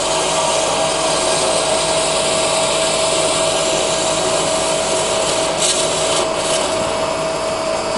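Cosen double-column horizontal bandsaw cutting through stock during a manual cut: a steady sawing hiss with a constant whining tone from the running blade and drive. The sound eases slightly near the end as the cut finishes.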